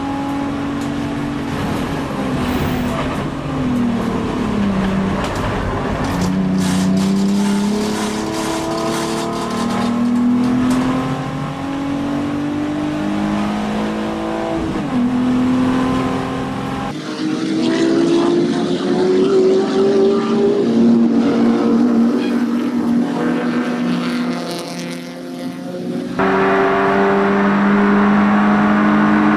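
Touring car engine heard from inside the race car's cabin, revving up through the gears with a sharp drop in pitch at each change and falling away under braking. The sound changes abruptly a couple of times as the onboard view cuts to another car.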